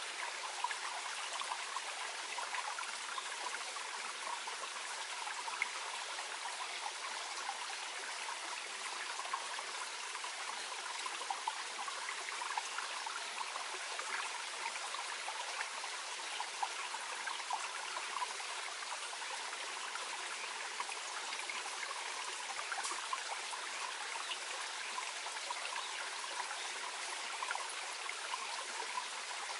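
Small mountain stream flowing gently over stones, a steady babble with many small trickling splashes.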